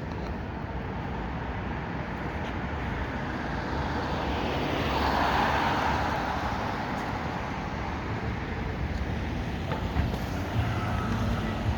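City street traffic: a car passes, its tyre and engine noise swelling and fading about halfway through, over steady traffic noise, with a low engine hum near the end.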